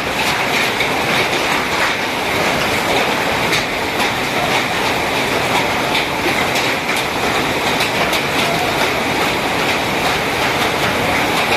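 Heavy hailstorm: a steady rush of downpour with many irregular sharp cracks of hailstones striking.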